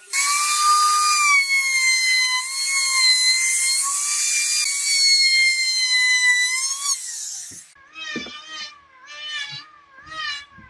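Electric router motor running at full speed with a steady high whine as it cuts into wood; about seven seconds in the whine breaks off into a few short, wavering bursts.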